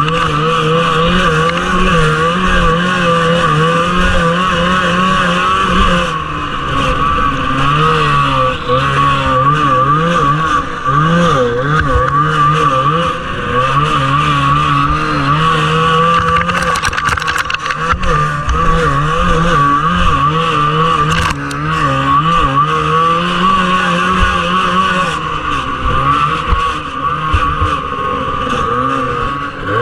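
Two-stroke engine of a 1979 Arctic Cat Jag 3000 snowmobile racing at high revs, its pitch rising and falling continually as the throttle is worked, with brief dips in revs now and then.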